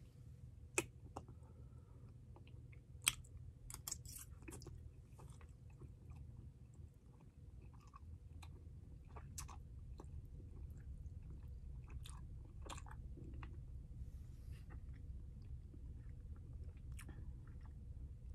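Faint mouth sounds of a person chewing and biting food with a palatal expander and tongue crib fitted to the roof of the mouth: scattered small wet clicks and crunches. Two sharper clicks come about a second in and about three seconds in, over a steady low hum.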